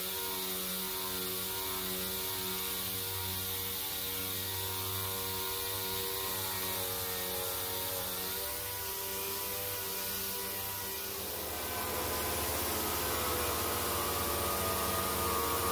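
Air-powered orbital sander running steadily against a brass-plated door frame, scuffing off the brass coating. Its pitch shifts about twelve seconds in.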